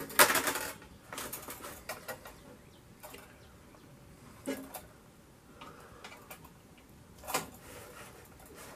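Copper capillary tube of a freezer cold control being pulled up through the sheet-metal cabinet by hand, rubbing and scraping. A brief loud rasp comes just after the start, followed by scattered light ticks and scrapes, the strongest about halfway through and near the end.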